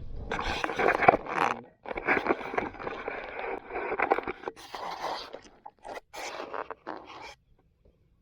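Rough scraping noises in several long bursts, which stop about seven seconds in.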